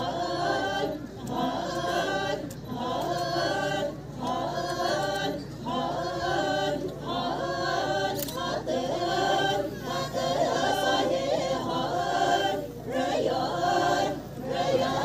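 A group of Chakhesang Naga women sings a traditional song in unison without accompaniment. It goes in short phrases, with brief breaks for breath about every second and a half.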